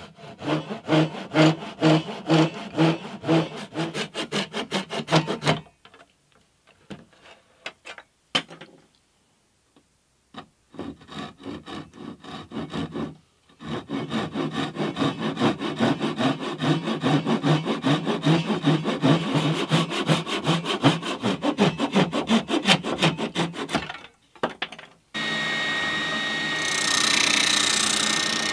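Hand rip saw cutting through plywood in rhythmic strokes, about two a second at first. A pause with a few knocks follows, then a longer run of faster strokes. Near the end a steady machine motor starts running.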